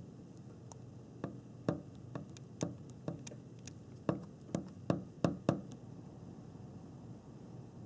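A raccoon feeding at metal cat food bowls: a dozen or so irregular sharp clicks and knocks, bunched between about one and six seconds in, over a faint steady hum.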